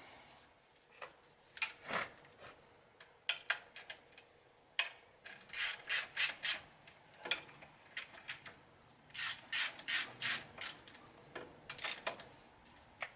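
Ratchet spanner clicking in several quick runs of a few clicks each, nipping up the clamp bolts on a refitted motorcycle front fork leg.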